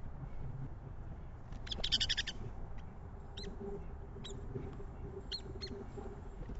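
Backyard songbirds calling: a quick burst of rapid, harsh high notes about two seconds in, then a few short, separate chirps, over a steady low outdoor background noise.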